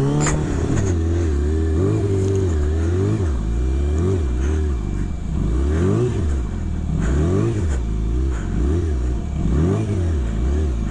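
Sport bike engine revving up and down in quick, repeated throttle blips while the bike is held up on its back wheel in a wheelie.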